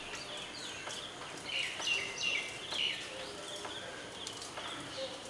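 Small birds chirping and twittering in quick, short rising and falling calls, busiest about two to three seconds in, with a few faint taps.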